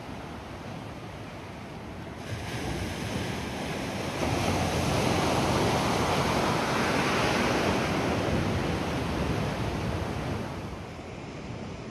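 Ocean surf: a wave surging in over a rock shelf and washing back, a rushing sound that builds about two seconds in, holds loudest for several seconds, then dies down near the end.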